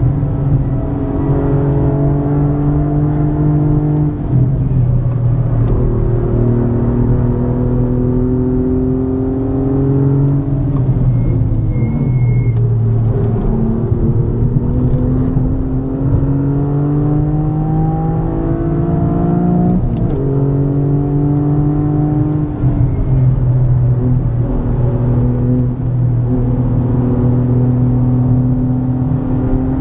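Toyota GR Yaris's turbocharged 1.6-litre three-cylinder engine with an aftermarket Aulitzky exhaust, heard from inside the cabin under hard driving. The revs climb steadily and then fall back sharply several times.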